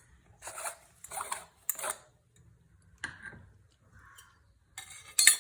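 Short metallic scrapes and clinks of a metal sev press (sevanazhi) and its mould being handled as dough is put in, several in a row with the loudest near the end.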